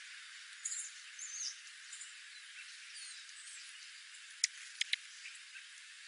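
Small songbirds calling: a few high chirps and short whistled glides about a second in, then three sharp clicks a little after four seconds in, over a steady high hiss.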